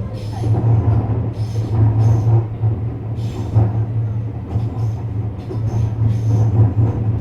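JR West 321 series electric train running, heard from inside the car: a steady low hum with short hissing bursts of wheel-on-rail noise every second or so.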